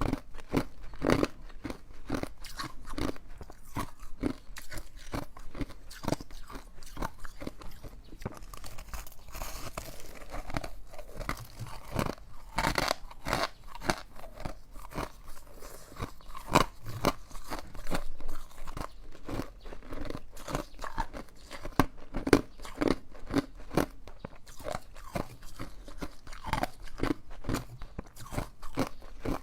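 Close-up chewing of ice, with a steady run of sharp crunches several times a second.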